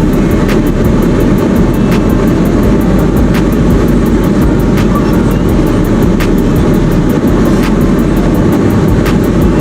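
Car driving: a loud, steady rumble of engine and road noise, with a faint tick about every second and a half.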